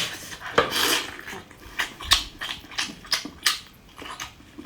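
Close-miked chewing of squid and rice: an irregular run of sharp, wet mouth clicks and smacks, about three a second.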